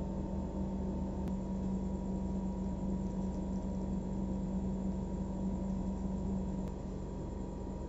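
Steady low hum with background hiss; its strongest tone stops about seven seconds in and the sound gets a little quieter.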